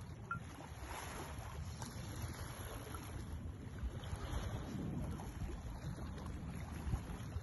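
Low, steady rumbling noise of wind buffeting the microphone, with sea wash beneath it.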